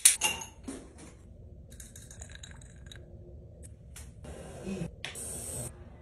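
Small cosmetic bottles and jars clicking and clinking as they are picked up and set down on a stone vanity counter, with a sharp click at the start. Two short rustling, hissing bursts come near the end.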